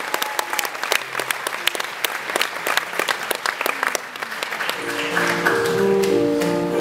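Audience applause, thinning out over the first few seconds, as the band starts the song's slow introduction with held chords about five seconds in.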